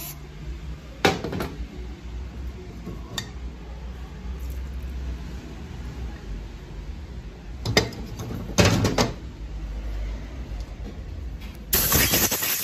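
Metal parts and tools clanking a few times against a steel workbench and a metal parts pan. Near the end a loud, steady hiss of a compressed-air blow gun starts up.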